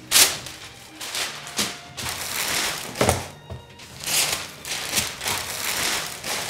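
A large sheet of packing paper rustling and crackling as it is pulled out and crumpled, in a string of uneven bursts, over background music.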